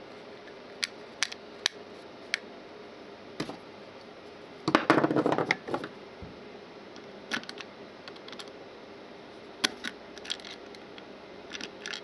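Plastic PIR alarm sensor housing being handled: scattered sharp clicks and taps, with a louder rattling clatter lasting about a second near the middle. A screwdriver meets the screw on the sensor's cover near the end, with a few more clicks.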